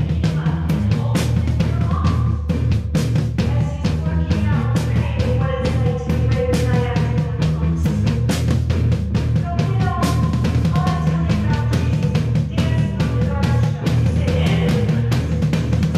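Rock music with a fast, driving drum beat over a steady bass line.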